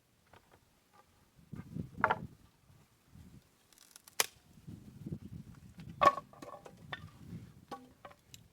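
Scattered sharp clicks and knocks, a few a second at most, with the loudest knock about six seconds in and a short hiss just before a sharp click about four seconds in.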